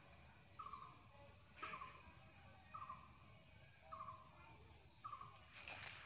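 Faint animal call: a short pulsed note that falls slightly in pitch, repeating about once a second. A brief click comes about two seconds in, and a short rustle just before the end.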